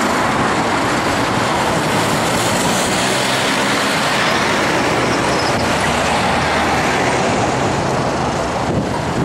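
Trucks passing close on the road: a steady mix of engine and tyre noise.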